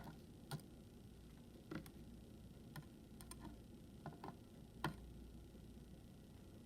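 Faint, sharp clicks and ticks at irregular intervals, about eight of them: small metal pins and springs from a gutted euro lock cylinder being handled and set down on a work surface.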